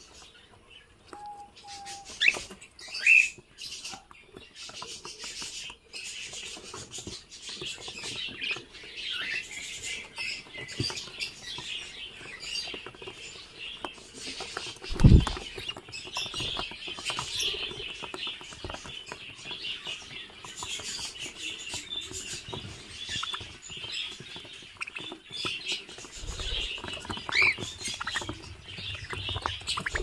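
A cockatiel breeding colony chattering, with a steady stream of soft chirps and a few sharper calls, along with pattering as the birds peck at leafy twigs. There is one loud thump about halfway through.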